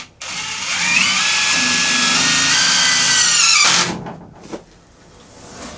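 Cordless drill running into a log rung: it spins up with a rising whine, runs steadily for about two and a half seconds, then stops.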